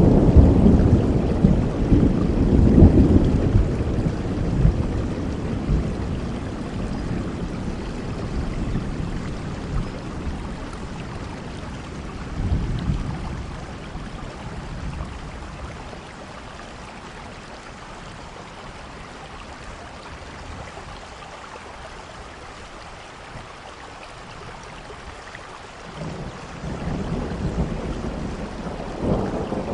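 Steady rain with rolling thunder. A loud rumble at the start dies away over several seconds, a shorter rumble comes about twelve seconds in, and another builds near the end.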